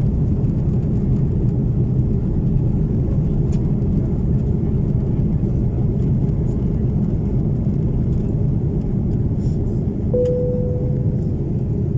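Steady low rumble of an airliner cabin, with one ringing chime tone about ten seconds in that fades away over about a second.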